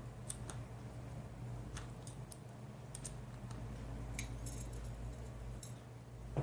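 Light, scattered clicks and ticks of small metal screws and a screwdriver being worked into a MacBook Pro's display hinge brace, with one sharper click at the end.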